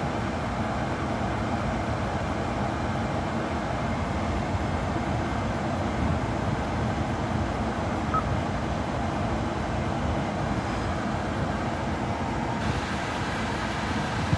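Steady rushing background noise inside a car's cabin. About eight seconds in, the head unit gives a short, faint beep as its touchscreen is pressed.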